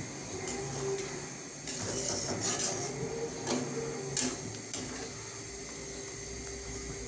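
A cooking spoon scraping and clicking against the pot as the curry gravy is stirred, a few short knocks bunched in the middle, over a steady hum.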